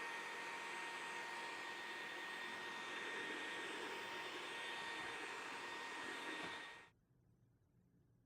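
Candy SO103 cordless stick vacuum running steadily, a rushing hiss with a thin motor whine. It cuts off abruptly about seven seconds in.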